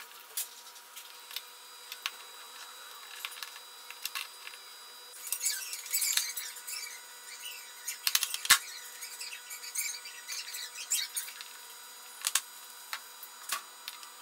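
Small clicks, taps and rattles of the plastic gearbox parts and DC motor of a dismantled cordless drill being handled and fitted together. A scratchy rattle comes about five to seven seconds in, and the sharpest click about eight and a half seconds in.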